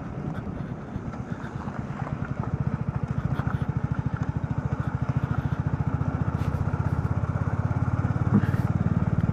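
Motorcycle engine running steadily while riding, its exhaust beat an even, rapid pulsing that gets a little louder about two to three seconds in.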